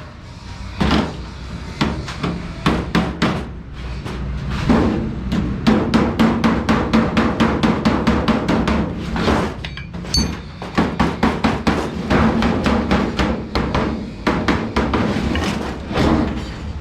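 Rapid, rhythmic hammer blows on sheet metal, several strikes a second, with a short pause midway.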